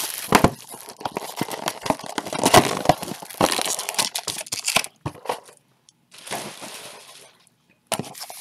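Clear plastic shrink wrap torn off a trading-card box and crumpled by hand: dense crinkling and tearing for about five seconds, a pause, then a shorter crinkle and a sharp rustle near the end.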